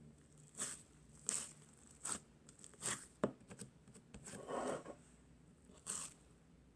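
Slime being squeezed and pressed by hand: a series of short crackly squishes about once a second, with one sharp click about three seconds in and a longer squish just after the middle.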